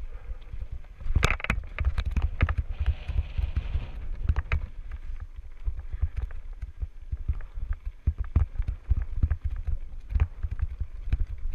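Mountain bike riding down a rocky dirt singletrack, heard from a helmet-mounted camera: a steady low rumble of wind and rolling tyres, with frequent sharp knocks and rattles as the bike hits bumps and stones.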